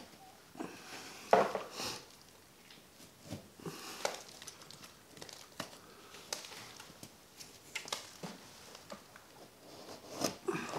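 Utility knife scraping and cutting at paper drywall tape and ceiling texture, the tape crinkling and tearing as it is worked loose. A scatter of short scrapes and clicks, the loudest about a second in.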